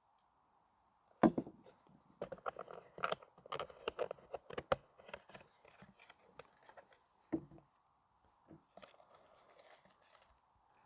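Packaging being handled as the box is unpacked: a knock about a second in, then a few seconds of light rustling and clicking of cardboard and plastic, and another knock a few seconds later.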